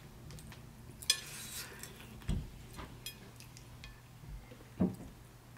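Hands picking through saucy beef on a plate: a few scattered clicks, soft taps and wet smacks as fingers and long nails pull at the meat and touch the plate.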